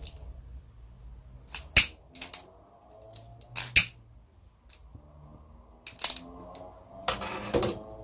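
A long-nosed utility lighter being clicked to light a cloth. There are two loud sharp clicks about two seconds apart, smaller clicks and handling between, and a burst of clicks near the end, all over a low steady hum.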